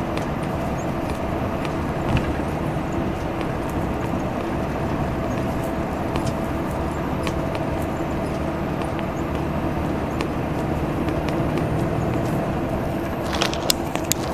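Diesel engine of a Salutaris coach bus running at a steady engine speed on the highway, a low even drone with a growl. A few sharp clicks or rattles come near the end.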